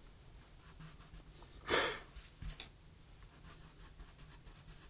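Faint scratching and rubbing of a coloured pencil on drawing paper, with one short, loud exhale about two seconds in.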